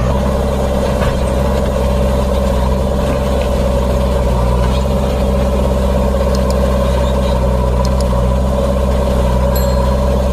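JCB 3DX backhoe loader's diesel engine idling steadily, with a few faint clicks in the second half.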